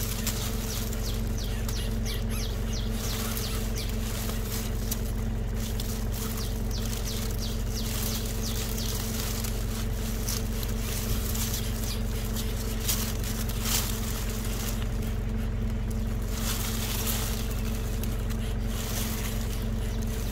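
Dry grass blades rustling and crackling as a hand parts a grass nest and handles the eggs inside, over a steady low mechanical hum.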